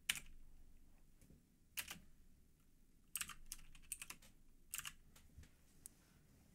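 Faint computer keyboard typing: scattered keystrokes, some single and some in quick little runs, with pauses between them.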